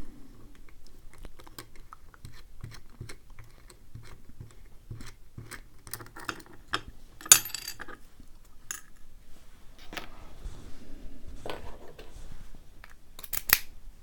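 Small metal clicks, ticks and scrapes as a brass padlock lock core is taken apart with a small steel pick, its retaining ring and cam worked off. A sharper click comes about seven seconds in, and a quick pair of clicks near the end.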